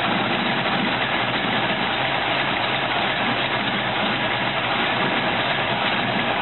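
A carburetted car engine idling steadily, heard close up in the open engine bay.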